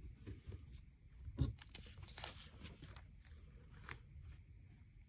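Faint handling of plastic LEGO pieces: a few small clicks and knocks as parts are fitted together, the loudest about a second and a half in, with brief rustling around two seconds.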